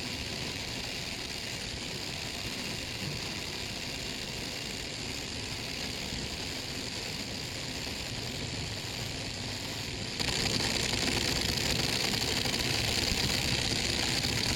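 Two cordless impact drivers, a Hyper Tough and a Milwaukee, running continuously flat out, a steady dense motor-and-hammer buzz that gets louder and brighter about ten seconds in. They are being run non-stop in a torture test, overheating to the point of smoking.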